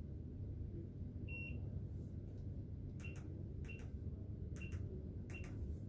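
PIN pad of a cash deposit kiosk beeping as its keys are pressed: one beep about a second and a half in, then four short beeps, each with the click of a key, less than a second apart. A steady low hum runs underneath.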